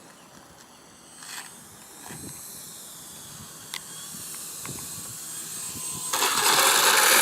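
Electric ducted-fan RC jet: a rushing fan hiss that slowly builds, then jumps suddenly to a loud, dense rush about six seconds in.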